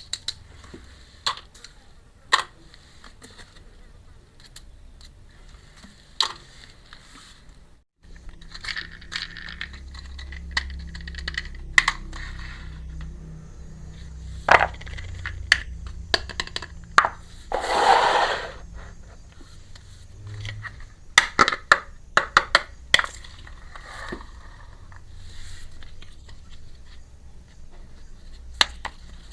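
Miniature toy kitchen pieces being handled: sharp clicks and taps as small hard pieces are set down and knock together, with a short scraping rustle about two-thirds of the way through.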